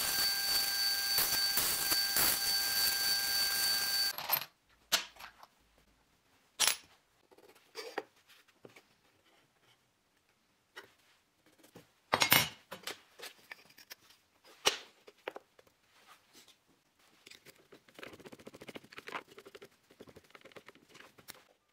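A benchtop bandsaw cutting a small block of wood, a steady whine with the blade's hiss, which cuts off suddenly about four seconds in. After that come scattered light knocks and taps of wooden blocks and a square being handled and set down on the bench, the loudest knock about halfway through, and faint scratching near the end.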